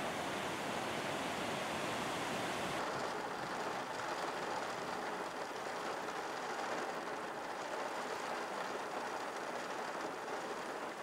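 Muddy floodwater rushing down a street in a fast, steady torrent: a continuous rushing noise. The higher hiss in it thins out about three seconds in.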